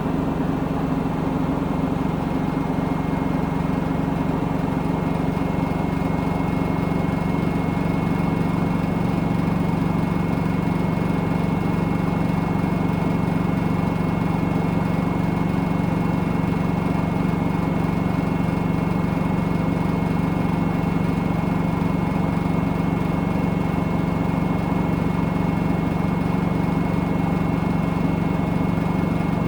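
Washing machine on a steady spin cycle: an even low hum from the spinning drum and motor with a thin high whine above it, unchanging throughout.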